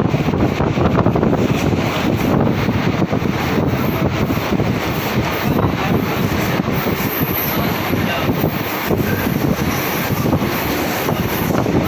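Mumbai suburban electric local train running along the line: steady rumble and clatter of wheels on the rails, with wind buffeting the microphone.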